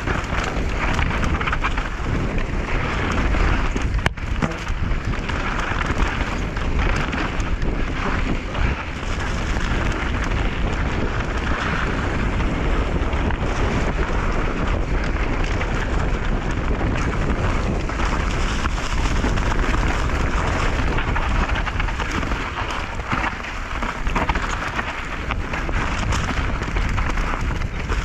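Mountain bike descending a rough dirt trail at speed: a steady, loud rumble of wind on the microphone and tyres over dirt and rock, with one sharp knock about four seconds in.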